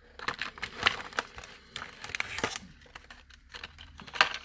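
Plastic blister packaging crinkling and rustling as it is handled, with irregular small clicks and taps; the sharpest click comes near the end.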